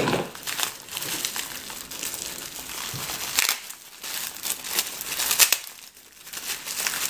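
Plastic wrapping and packing tape crinkling and tearing as a small package is pulled open by hand. The crackling comes in uneven handfuls, with two short lulls in the middle.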